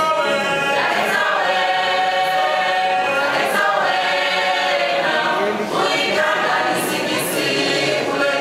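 Mixed choir of women and men singing together, holding long notes that move from chord to chord, with a short break between phrases about two-thirds of the way through.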